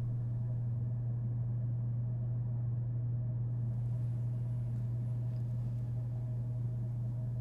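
A steady low hum at an even level, with a fainter higher tone held above it.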